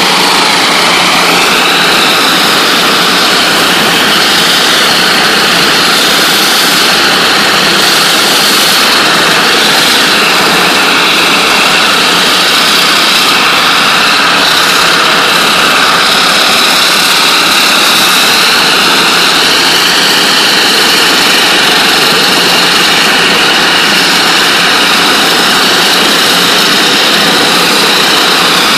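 NLB Spin Jet rotating water-jet head blasting a floor at 40,000 psi: a loud, steady hissing rush with a faint whine that wavers slowly in pitch.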